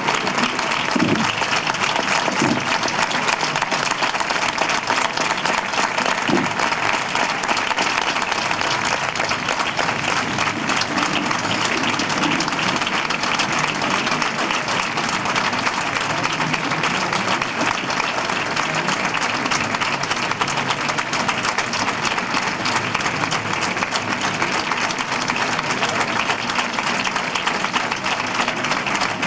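Audience applauding steadily at a band concert, the applause dense and sustained throughout.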